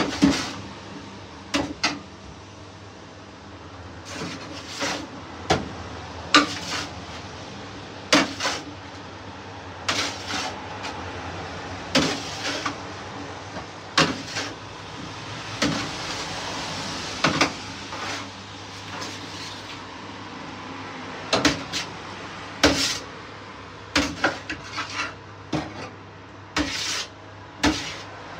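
Metal tongs clinking and scraping against a stainless-steel tray as roast potatoes are turned, in irregular sharp clanks every second or so, over a steady low hum.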